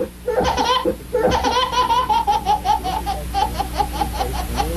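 A baby laughing hard in high-pitched, quick bursts. Two short runs of laughter come first, then a long unbroken string of rapid laughs starts a little over a second in.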